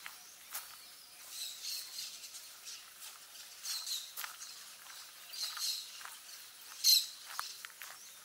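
Park ambience with birds chirping in short bursts, scattered sharp clicks, and one louder sharp sound about seven seconds in.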